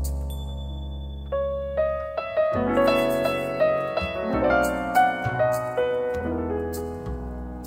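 Background piano music: a melody of single notes over low, held bass notes.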